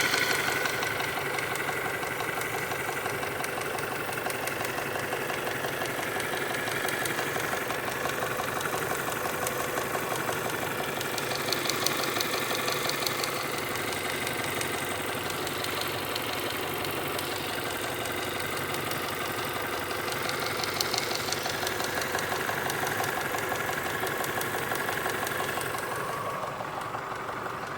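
Honda H23A1 2.3-litre DOHC four-cylinder engine running steadily with a fast, even ticking from the top end. The owner is unsure whether it is valve lash needing adjustment or rod knock.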